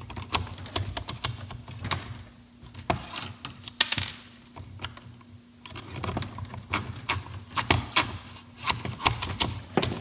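Irregular small clicks and taps of the plastic toothed drive cable and metal mast of a BMW E30 power antenna being fed by hand into the antenna housing, with a sparser stretch in the middle.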